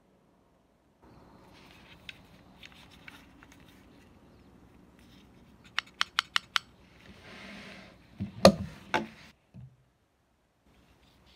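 Handling noise from a Colt Government Model .22 LR 1911 pistol: scattered light clicks, then a quick run of five sharp clicks, a short scraping slide, and two louder clacks about half a second apart.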